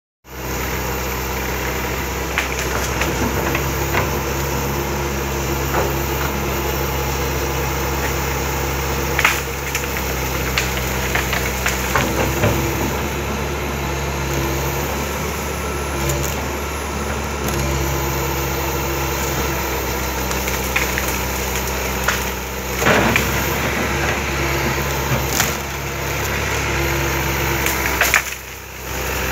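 Komatsu PC160-8 LC hydraulic excavator's diesel engine running steadily under load, its pitch shifting now and then as the hydraulics work. Scattered sharp cracks and snaps of wood break through it as the machine pushes against a tree.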